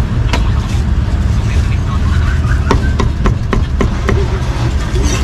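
Meat cleaver chopping meat on a chopping board: a single chop, then a quick run of six chops about three a second. Under it runs a steady low rumble of street traffic.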